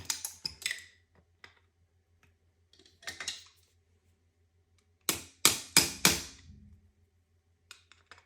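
Taps on a new fuel injector to seat it in its fuel rail. A few light clicks come first, then a short cluster, then four hard, sharp taps in quick succession about five seconds in.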